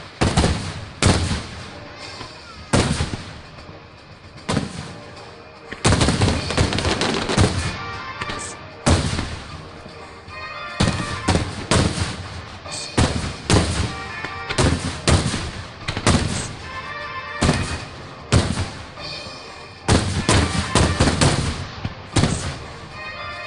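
Aerial fireworks shells bursting in a rapid series of loud booms, often about one a second, crowding into dense volleys several times, each boom trailing off in a rumbling echo.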